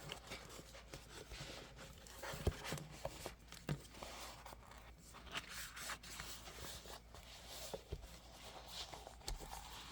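Hands working a plastic cover onto a planner: soft rustling with scattered light taps and clicks, the sharpest about two and a half seconds in.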